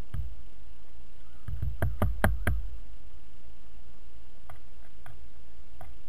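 Red-headed woodpecker pecking at food in a feeder tray: a quick run of about five sharp taps of its bill about two seconds in, with a few fainter taps later, over a steady low rumble.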